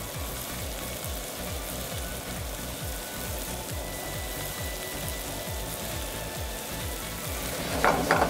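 Fettuccine and sauce sizzling in a hot pan, with background music that has a steady beat. Near the end come two or three loud clatters.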